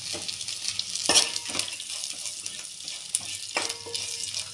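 A metal spoon stirs and scrapes sliced onions and spice powders frying in a little oil in a metal pot, over a light sizzle. A few sharp scrapes and knocks of the spoon against the pot stand out.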